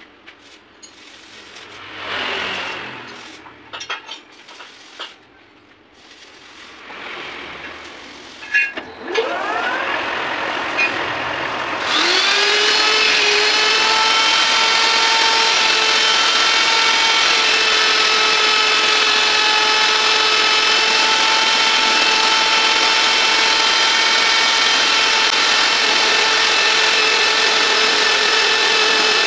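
Angle grinder mounted on a lathe's tool post as a tool-post grinder, with the lathe also running. About nine seconds in, and again about twelve seconds in, a motor spins up with a rising whine. From then on the grinder gives a loud, steady, high-pitched whine. Before that there are only light knocks and handling sounds.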